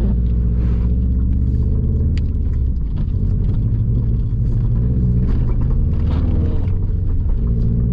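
Subaru WRX STI's turbocharged flat-four engine running at a steady cruise, heard from inside the cabin as a low drone, with road and tyre noise from the studded winter tyres on snow. Faint scattered ticks run over the drone.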